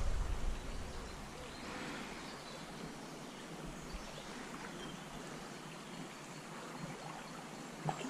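Small stream running: a faint, steady rush of water. A low rumble sits under it in the first half second.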